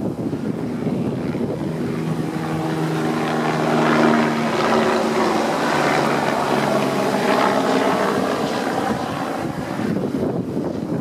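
A passing engine: a steady droning hum that swells to its loudest about four seconds in and drops slightly in pitch as it goes by.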